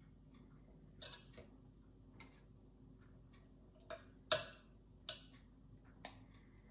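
Scattered light clicks and clinks of a metal fork against a pineapple can and metal muffin pans as pineapple rings are lifted out and set into the cups, at irregular spacing, the loudest clink a little past four seconds in. A faint steady hum runs underneath.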